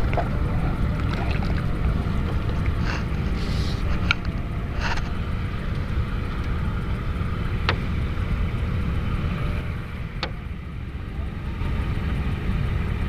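Steady low rumble of wind on the microphone aboard a small rowboat, with a few sharp clicks as fishing gear is handled.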